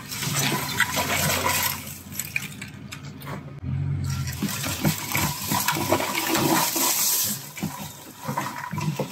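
Bushes and twigs brushing and scraping along the body of a Jeep Cherokee XJ as it creeps through a narrow overgrown track, a rushing, crackling noise over the engine's low hum.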